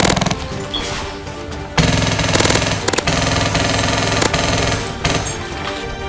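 Music with a fast, rapid rattle of full-auto gunfire mixed in. The rattle is typical of an airsoft light machine gun and is densest in the middle of the clip.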